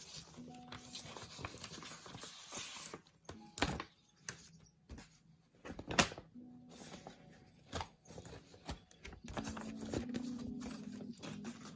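Packaging and paper items being handled: scattered taps and clicks with a brief rustle, over quiet background music that becomes more noticeable near the end.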